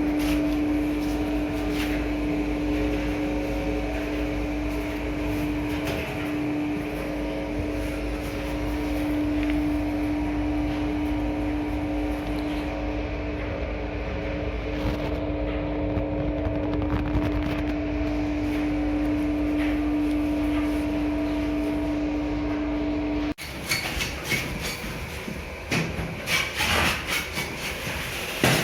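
A machine running steadily with a constant, even hum and a low rumble, which cuts off abruptly near the end; after it come irregular knocks and clattering.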